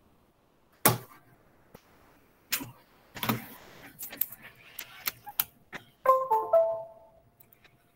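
A few sharp knocks and clicks, then about six seconds in a short chime of several steady notes that dies away over about a second.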